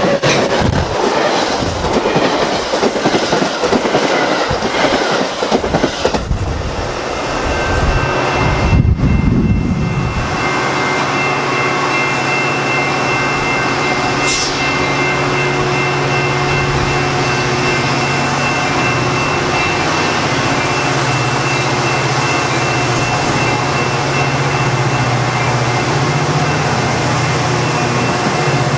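Metra F40PHM-2 diesel locomotive passing close at speed, its engine and wheels loud for about the first ten seconds. Then a steady rolling hum with rail clatter as bilevel gallery cars go by, with a brief high squeal about fourteen seconds in.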